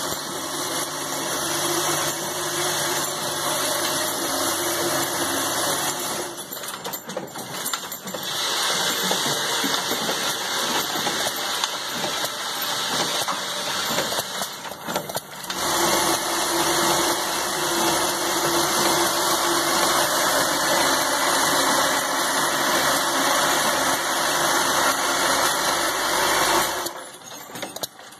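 A 1/2-inch rivet assembly machine running, with its rotary indexing dial and drive making a loud, dense mechanical noise over a steady hum. The noise dips briefly twice and drops away shortly before the end.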